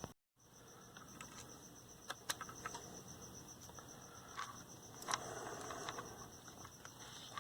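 Small scattered clicks and taps of tiny screws and plastic radio parts being handled during reassembly, with a brief rustle about five seconds in. A steady, rapidly pulsing high chirp runs underneath.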